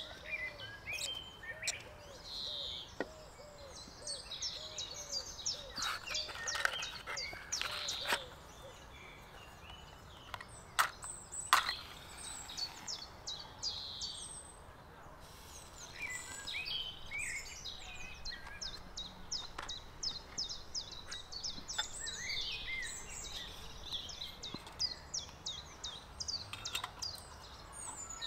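Songbirds chirping and singing continuously. Over them come a few sharp clicks and knocks from handling a Trangia spirit stove, its burner and a matchbox; the loudest is about eleven seconds in.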